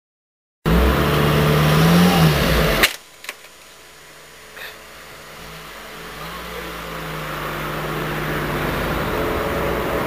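Peugeot car engine revving up and down as the car manoeuvres, cut off by a sharp click about three seconds in. The engine then sounds faintly before running steadily and growing louder as the car pulls away.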